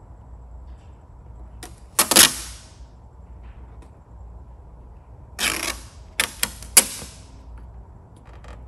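Adhesive vinyl graphic and its paper backing rustling and crackling as the film is handled and lifted back off the paint to reposition it. There is a loud rustle about two seconds in, another about five and a half seconds in, then three sharp snaps.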